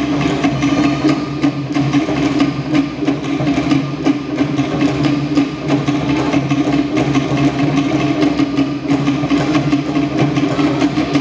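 Tahitian drum ensemble playing a fast, unbroken rhythm: the sharp wooden clatter of toʻere slit drums over deeper drums.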